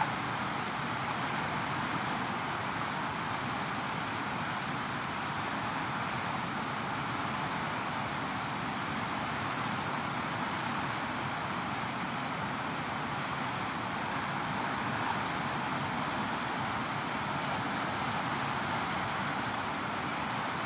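Fast-flowing river rushing over rapids and around boulders, a steady, even rush of water.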